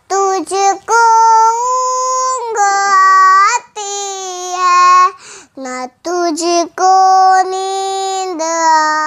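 A young girl singing an Urdu naat unaccompanied, in long held notes with turns of pitch between them and short breaks for breath.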